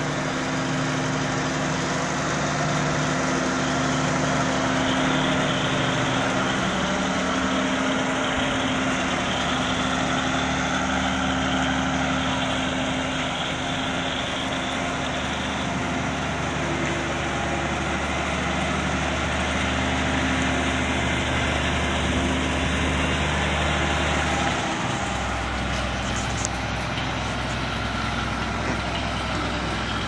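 Vintage Massey Ferguson combine harvester's engine running steadily as the machine drives slowly, its note changing a little about 25 seconds in.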